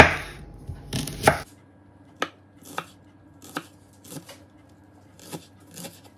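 Knife chopping green onions, a slow, even stroke about every two-thirds of a second, after a few louder knocks in the first second and a half.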